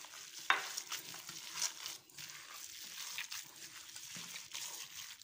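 Hands kneading minced meat with onion and peppers in a stainless-steel bowl: irregular wet squishing and squelching, with a few sharper clicks of the meat and fingers against the bowl.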